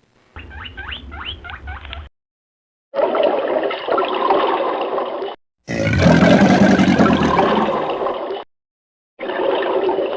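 A run of short animal-call recordings, cut one after another with brief silent gaps. The first is a string of quick rising chirps over a low hum, and the next three are louder, rough, noisy calls.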